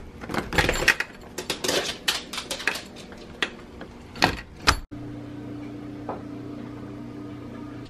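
A rapid run of clicks, knocks and metallic clatter from a door's handle and deadbolt being worked. After an abrupt cut near the middle, a steady low electrical hum.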